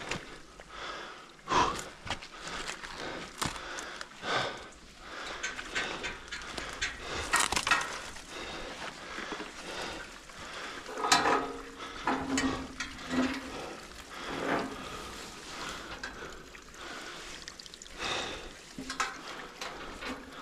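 Heavy, effortful breathing of a person climbing down a frozen slope, mixed with irregular scuffs and crunches of steps and handholds on ice and snow.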